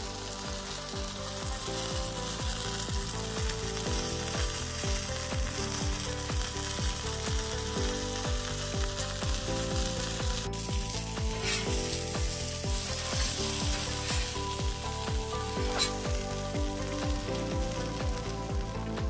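Salmon sizzling steadily as it fries on a Blackstone flat-top griddle, heard under background music with a steady beat.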